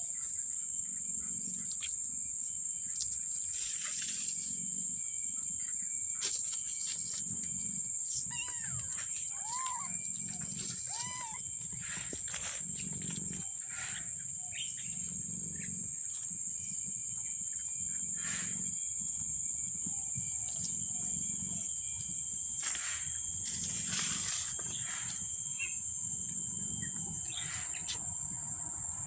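Crickets chirring steadily and high, with a few short kitten mews about nine to eleven seconds in.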